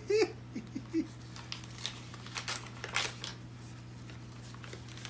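Paper envelope being torn open and a card slid out, with short bursts of crinkling and tearing that die away about halfway through, over a steady low hum.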